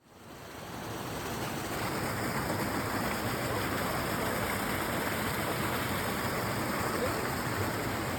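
River water rushing, a steady even sound.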